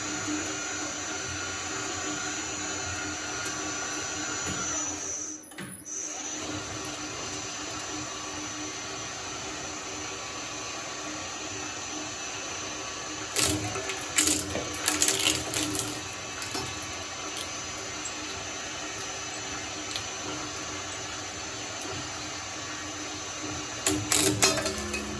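Shredder motor running with a steady hum, briefly dropping out about five seconds in. Clusters of sharp crunching and crackling come through twice, once in the middle and once near the end, as material goes through the cutters.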